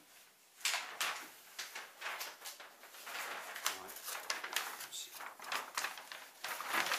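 Large paper plan sheets rustling and crackling as they are lifted, unfolded and handled.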